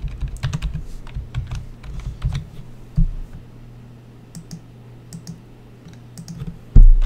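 Typing on a computer keyboard: a quick run of keystrokes over the first couple of seconds, then a few scattered clicks. A loud low thump comes near the end, over a steady low hum.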